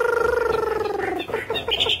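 Chinese hwamei singing: one long, slightly falling nasal note, then a quick run of short repeated notes, about eight a second.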